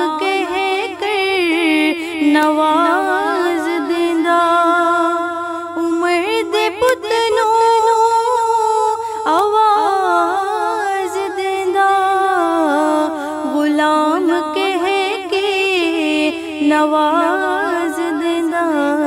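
A woman singing a Punjabi Muharram kalam (devotional lament) solo and unaccompanied, in long held notes with wavering, ornamented turns.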